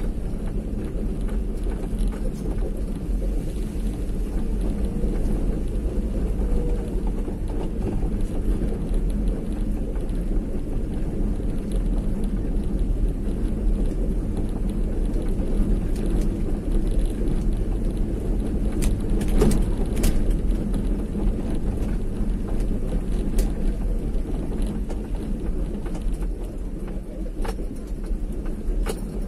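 Steady low rumble of a vehicle being driven, engine and road noise together, with a few faint clicks or knocks in the second half.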